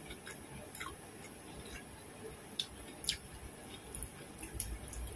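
A person chewing a mouthful of food: soft wet mouth clicks and smacks, a few sharper ones scattered through.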